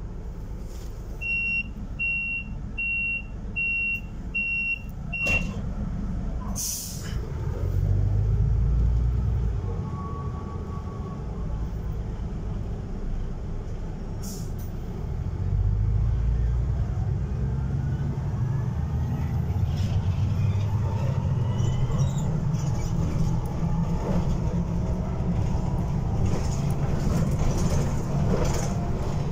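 Inside a Van Hool NEW AG300 articulated bus: six short, evenly spaced beeps of the door-closing warning, then a sharp hiss of compressed air about seven seconds in as the doors shut. The bus then pulls away, its engine rumbling and rising in pitch as it works up through the gears, with the rattle and road noise of the ride.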